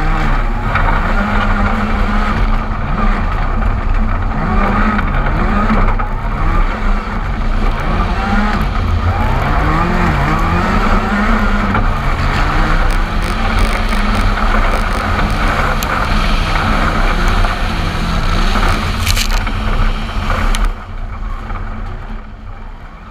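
Ford Fiesta R5 rally car's turbocharged 1.6-litre four-cylinder engine at full race pace, rising and falling in pitch with each gear change, over loud gravel, tyre and wind noise from a camera mounted on the outside of the car. The sound drops away about three seconds before the end and fades out.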